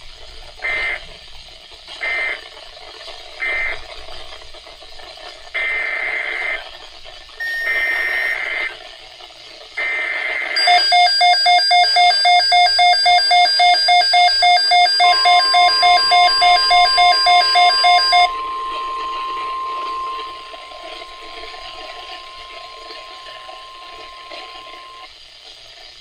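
NOAA Weather Radio Emergency Alert System (SAME) transmission for a Severe Thunderstorm Watch: three short data bursts, then three longer warbling header data bursts ending about ten seconds in. A weather radio receiver then sounds a loud pulsing electronic alert beep, about three to four beeps a second, for about eight seconds, and partway through the steady 1050 Hz warning alarm tone begins and holds for about ten seconds.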